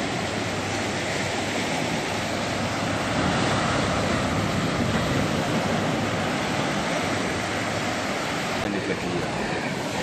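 Sea surf breaking and washing onto a sandy beach: a steady, even wash of noise.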